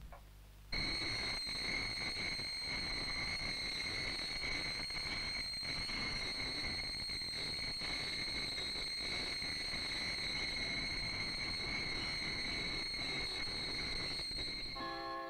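A steady, shrill hissing whistle of gas jetting out, a TV sound effect for smoke pouring into a room. It starts suddenly about a second in and fades near the end as a chiming tune comes in.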